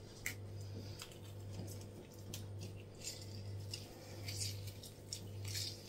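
A fork jabbing and scraping inside a halved lemon as it is squeezed, with faint small clicks and wet squishing of the juice. A low steady hum runs underneath.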